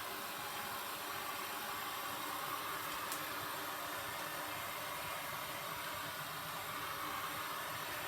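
Heat gun blowing steadily: an even rush of air with a faint steady hum. It is being played over a freshly poured epoxy resin flood coat to spread the resin and bring up air bubbles.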